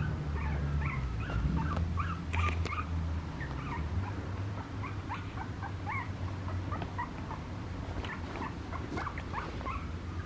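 Papillon puppy whimpering in a steady stream of short, high squeaks, several a second. A low hum runs underneath for the first few seconds.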